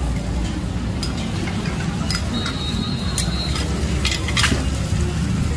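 Fresh green-mussel and egg pancakes (hoi tod) sizzling on a large flat griddle while a metal spatula scrapes and taps on it, giving several sharp clinks, over a steady low background rumble.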